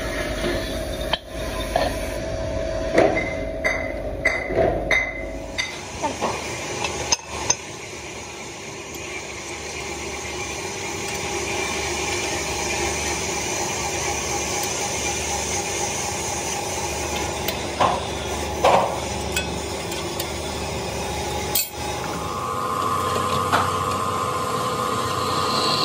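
Metal tapping and clinking, several sharp knocks in quick succession over the first few seconds and a few more later, over steady workshop machine noise. A steady whine comes in near the end.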